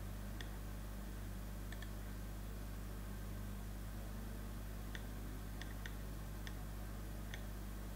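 Faint computer mouse clicks, about seven scattered through, over a steady low electrical hum and hiss.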